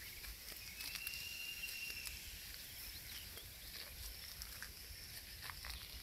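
Faint birds calling, with scattered high chirps and clicks and one held whistled note about a second in, over a low rumble.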